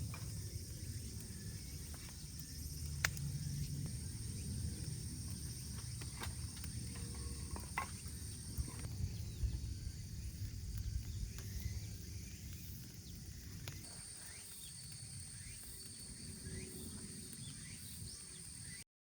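Wood fire burning in a solo grill fire pit, with a low rumble and scattered sharp crackles and pops. Crickets trill steadily and high in the background.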